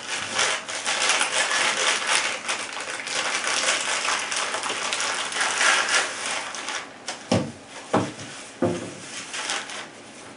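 Packaging crinkling and rustling as it is handled, a dense crackle. Three light knocks follow a little after seven seconds in.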